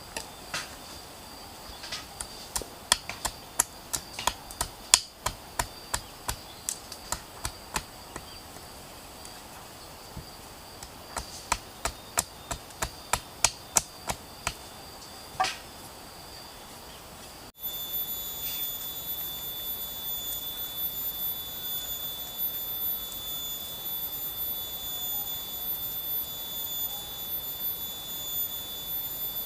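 Repeated sharp blows on wood from shelter-building, in runs of about two strikes a second with pauses between. After a sudden cut, a steady, high-pitched forest insect drone takes over and holds.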